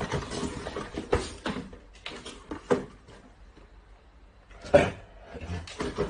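Small cardboard boxes being handled and set down into a cardboard carton: irregular knocks and rustling, with the sharpest knock a little before the end.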